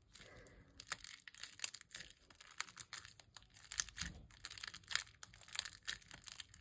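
Butter slime with lotion being kneaded and stretched by hand, giving faint, irregular sticky clicks and crackles.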